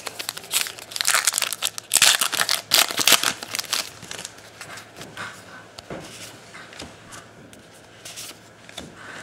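Foil wrapper of an Allen & Ginter trading-card pack crinkling and tearing as it is ripped open, loudest over the first few seconds, followed by softer rustling and light clicks of the cards being handled.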